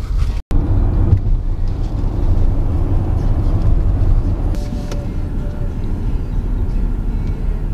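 Steady low rumble of a car's engine and road noise heard inside the cabin while driving. It cuts out completely for a moment about half a second in.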